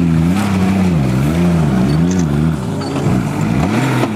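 Range Rover engine revving up and down repeatedly under off-road load, its pitch rising and falling about once a second, dropping lower about three seconds in and climbing again near the end.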